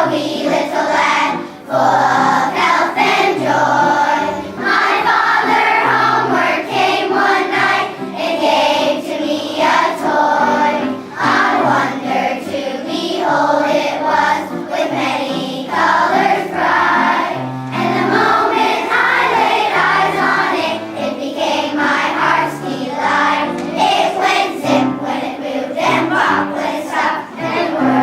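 A children's choir singing a holiday song over a steady low accompaniment.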